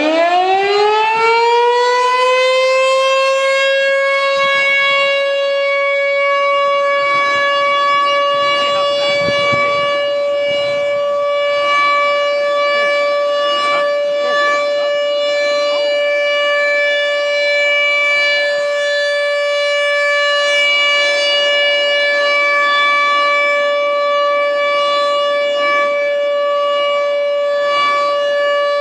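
American Signal T-128 outdoor warning siren winding up over the first few seconds into a high, steady wail and holding it: a scheduled siren test.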